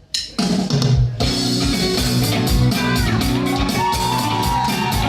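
Live rock band starting a song: after a sharp click, drum kit, bass and guitar come in together about half a second in and play on loud with a steady beat.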